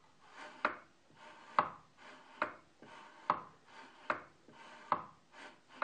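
Wooden tenon jig's carriage worked back and forth by its handle linkage, sliding on its steel rod: a short rub, then a sharp wooden click as it knocks against its stop, seven times at an even pace of about one a second.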